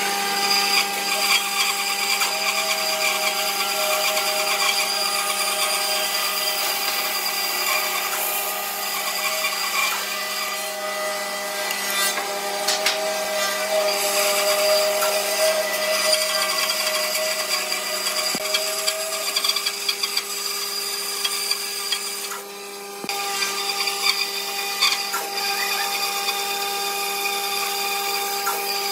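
Bandsaw running and cutting through a wooden block: a steady motor hum under the rasp of the blade in the wood. The sound dips briefly about three quarters of the way through, then the saw goes on cutting.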